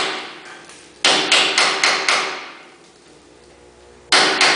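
A hammer striking a punch held against the lip of the old steel inner bushing sleeve in an IH Scout 800 frame's shackle hanger, banging the edge up to start the sleeve out. A run of about five ringing metal blows, roughly four a second, starts about a second in, and another run begins near the end.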